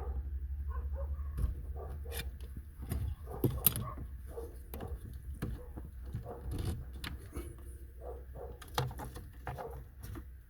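Irregular clicks, taps and light rattles of hands working a plastic wiring-harness connector loose under a car's steering column, with a low hum that stops about a second and a half in.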